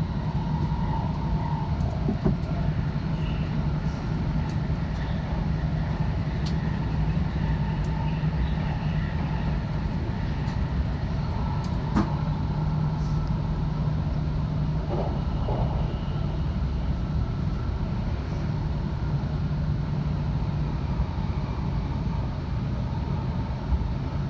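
Tohoku Shinkansen E2 series train running, heard inside the passenger cabin: a steady low rumble, with a faint click about two seconds in and another about twelve seconds in.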